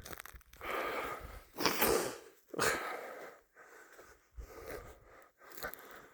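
A person breathing hard and loudly close to the microphone, several heavy breaths in the first three seconds and fainter ones after.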